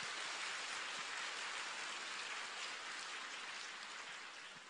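A large audience applauding, an even patter of many hands that slowly dies away near the end.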